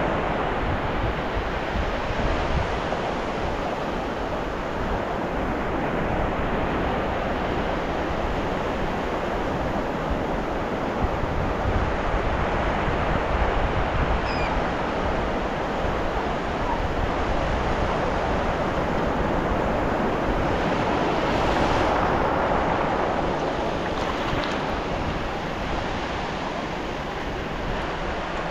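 Ocean surf washing onto a beach: a steady rush of breaking waves that swells and eases, with one wave building a little louder about three-quarters of the way through.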